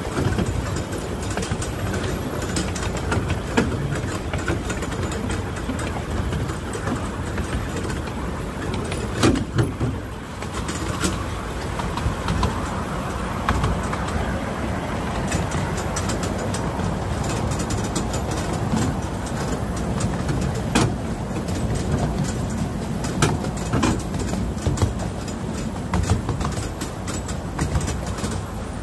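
A miniature steam railway train running along its track, heard from a riding car behind the locomotive: a steady rumble of wheels on rail, broken by frequent sharp clicks and knocks as the wheels pass over rail joints.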